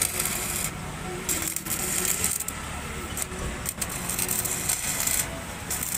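Electric arc welder crackling and sizzling as a bead is run on the motorcycle's broken steel side-stand mount, fixing small steel support plates in place. The crackle comes in stretches with a few short breaks in the arc.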